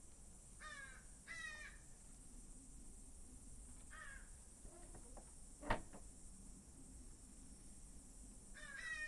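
Marmoset giving short runs of quick, high chirping calls, four times, right at the microphone. A single sharp click about halfway through.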